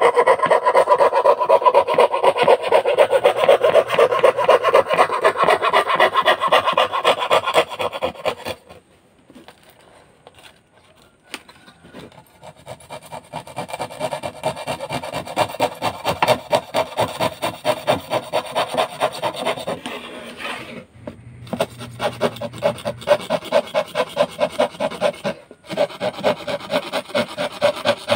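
A saw with a number 8 blade cutting through 8 mm plywood in quick repeated strokes. The cutting stops about eight and a half seconds in and starts again about three seconds later.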